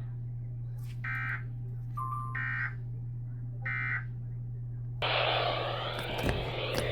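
Emergency Alert System end-of-message data bursts: three short, harsh digital-tone bursts about 1.3 s apart, signalling the end of the alert, over a steady low hum. A loud rushing noise comes in about five seconds in.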